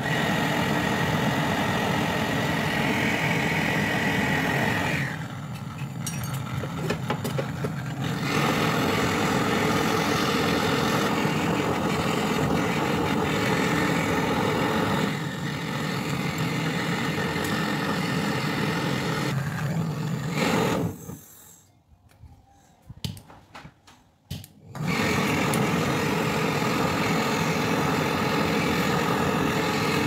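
Handheld butane canister torch flame hissing steadily on a copper pipe joint at a refrigerator compressor. It drops lower for about three seconds around five seconds in, cuts out for about four seconds past twenty seconds, then comes back.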